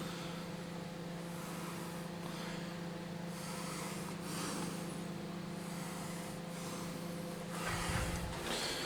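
A steady low machine hum with an even background hiss. The hum cuts off near the end, and a louder rustling, shuffling noise follows.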